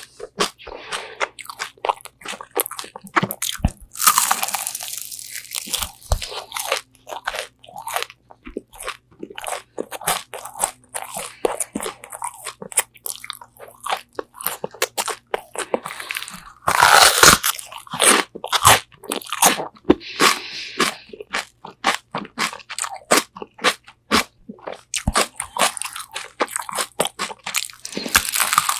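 Close-up eating of crispy Korean fried chicken wings: loud crunching bites into the fried crust and steady chewing, with a couple of louder crackling bites about four seconds in and past the middle.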